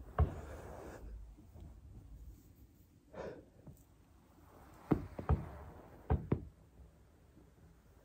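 Joints in the back popping as the body rolls over a foam roller: a sharp pop just after the start, two pops about five seconds in, and a quick pair of pops about a second later. Softer rustling, breathy sounds between them.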